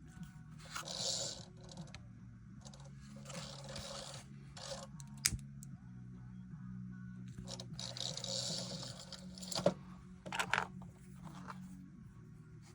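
Scraping noises in three stretches, with a few sharp clicks, as the thread ends on a machine-stitched leather sheath are trimmed and singed with a lighter. A low steady hum runs underneath.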